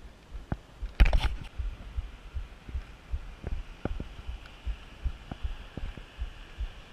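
Mountain bike rolling over a rocky trail, heard as irregular muffled thumps and knocks through the camera mount, with one loud clatter about a second in.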